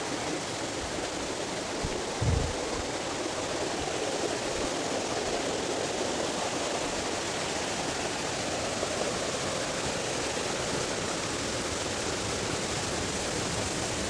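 Spring-fed mountain stream rushing over rocks, a steady hiss of running water. A brief low thump about two seconds in.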